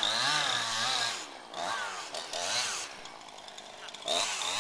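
Two-stroke chainsaw revved in quick repeated blips. It drops to a lower idle for about a second, then revs again near the end.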